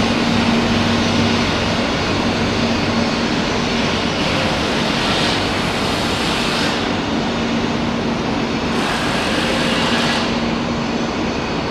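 E3-series Genbi Shinkansen train standing at the platform, its onboard equipment giving a steady hum and rush of fans. A higher hiss swells twice, about four and nine seconds in.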